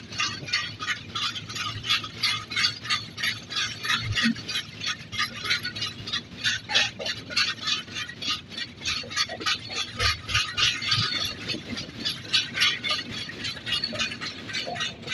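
Passenger rail coach rattling and clattering while the train runs: a quick, even run of metallic clicks, several a second.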